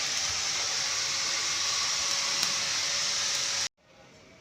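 Steady loud hiss of a metal cutting or welding tool working on sheet steel, cutting off suddenly near the end to a much quieter background.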